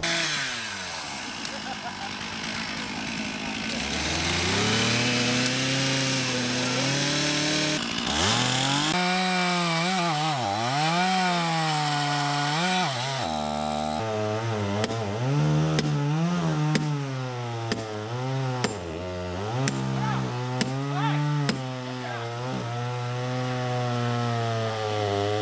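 Two-stroke petrol chainsaw cutting into a large tree trunk, its engine pitch rising and dipping again and again as it revs and bogs under load in the cut. Short sharp clicks sound through the second half.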